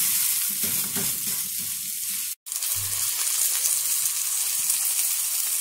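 Ground-beef hamburger patty sizzling steadily as it fries in a nonstick frying pan without oil. The sizzle drops out for an instant about two and a half seconds in, then carries on.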